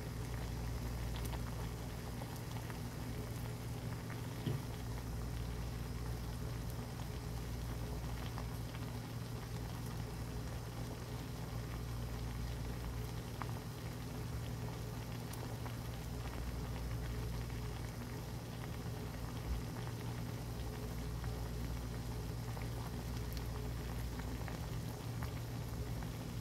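Doenjang soup with bangpung greens at a rolling boil in a pan: steady bubbling and popping over a low, steady hum, with a faint knock twice.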